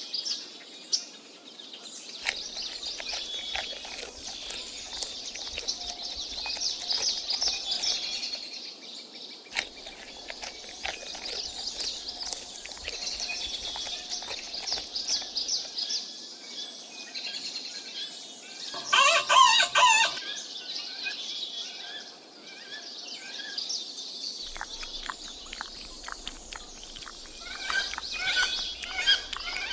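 Birds chirping and twittering steadily, with one loud call lasting about a second, about two-thirds of the way through.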